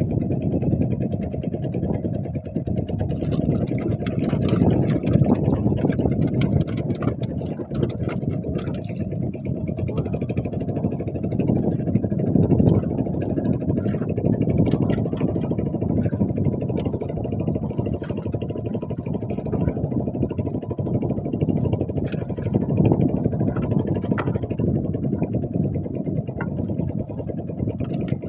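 Small fishing boat's engine running steadily, with scattered light clicks and knocks over it.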